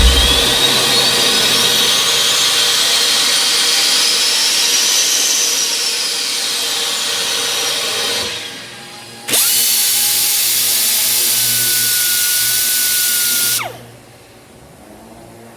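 A power tool running in two long bursts: about eight seconds with a whistle that rises and then falls in pitch, then, after a short pause, about four seconds more before it cuts off suddenly. Music plays faintly underneath.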